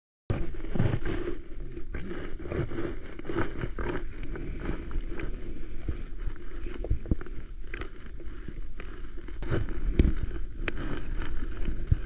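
Muffled underwater sound from a camera in shallow seawater: a steady low rumble of moving water, scattered with irregular clicks and knocks. It cuts in suddenly just after the start.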